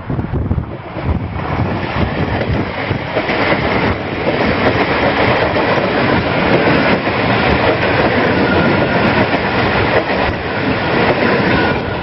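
A Dublin DART electric multiple unit passing close by on the rails. The rush of its wheels on the track swells over the first few seconds as it approaches, stays loud for several seconds as the carriages go by, and drops away near the end.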